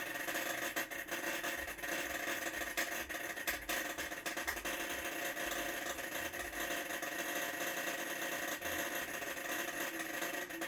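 Whirlpool WTW5057LW top-load washer running a load and making a loud noise: a steady whine with scattered clicks on top.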